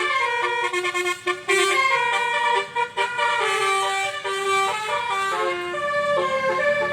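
Basuri telolet horn on an odong-odong playing a melody: a continuous string of horn notes stepping up and down in pitch.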